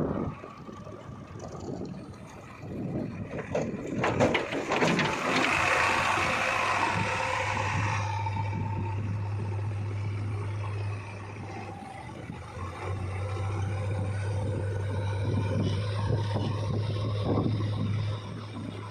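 Heavy diesel earthmoving machinery running and working, with a steady low engine hum. A noisy stretch of scraping and rattling comes about three to eight seconds in.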